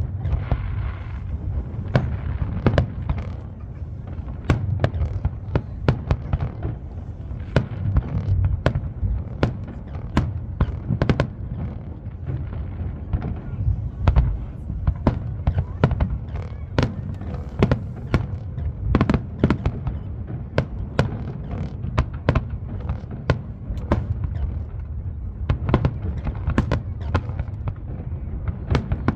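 Fireworks display: a dense, continuous string of sharp bangs and booms, many per second, over a constant low rumble.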